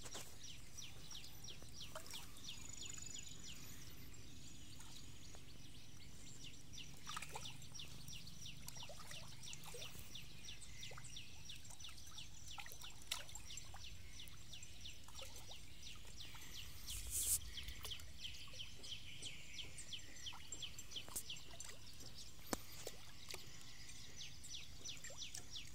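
Fish feeding at the water's surface, taking floating food with scattered small pops and slurps, over a steady background of rapid rhythmic chirping. One louder knock about seventeen seconds in.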